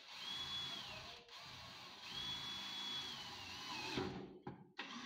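Cordless drill driving into wood framing overhead, running in two bursts with a steady high whine that drops in pitch as each run slows to a stop. There is a knock near the end.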